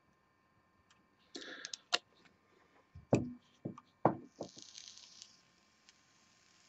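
Handling sounds of a glass dropper and a box mod: a few sharp clicks and knocks as the dropper is put away and the mod is picked up. Near the end the freshly juiced coil of a rebuildable dripping atomizer is fired, giving a soft hiss that slowly grows as the e-liquid vaporises.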